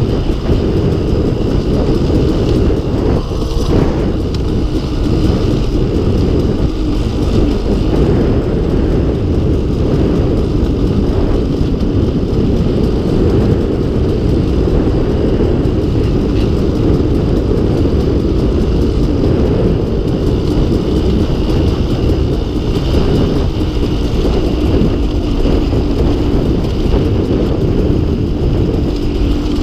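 A 2016 KTM 200 XC-W's single-cylinder two-stroke engine running steadily at low speed as the dirt bike rides along a dirt trail, heard from the rider's position.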